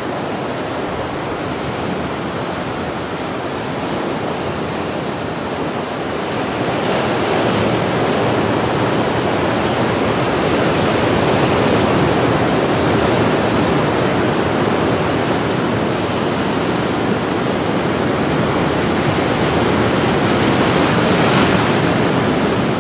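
Heavy post-storm surf breaking on a rocky shore: a steady rushing wash of white water that swells louder a few seconds in, with a bigger wave crashing against the rocks near the end.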